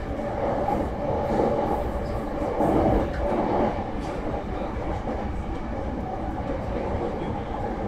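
Hankyu commuter train running at speed, heard from inside the carriage: a steady rumble of wheels on rails with faint clicking over the track. It swells louder for about a second around three seconds in.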